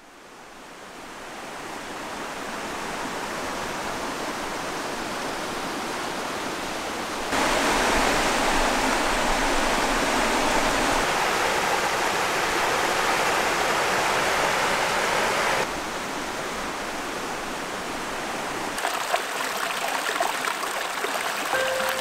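Mountain stream of clear water running over rocks: a steady rush that fades in at the start, grows louder about seven seconds in and drops back about sixteen seconds in. Small splashes and trickles stand out near the end.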